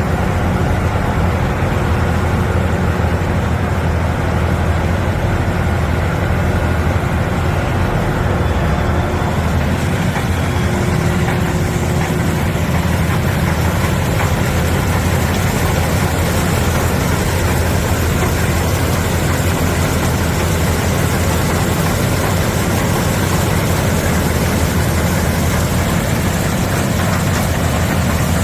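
TYM TH1200 soybean combine harvester running steadily, its engine and machinery giving a loud, even drone; about ten seconds in a brighter hiss joins it.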